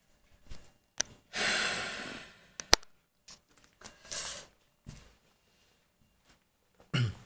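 Pencils being set down and adjusted on a sheet of paper on a hard floor, with a couple of sharp clicks, and a long breath close to the microphone about a second and a half in that fades away. Shorter breaths follow, and there is a brief voiced sound near the end.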